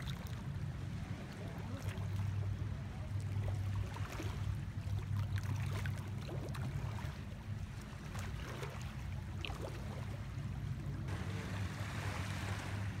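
Small lake waves lapping at the shore, with scattered light splashes, over a steady low hum that swells and fades a little.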